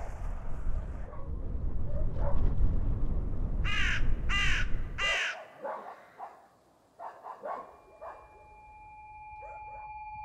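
A crow caws three times, loud and harsh, over a low rumble; the rumble cuts off suddenly and fainter caws follow, then a steady held tone sets in near the end.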